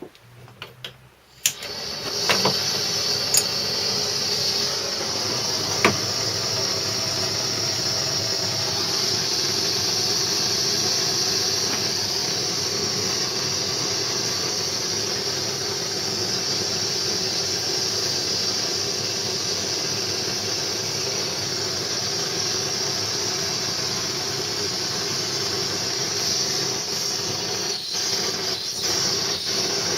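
A heating tool switched on with a click and running with a steady hiss, heating the crank pin so it can be pressed onto the crankshaft; a sharp click or tap sounds a few seconds in.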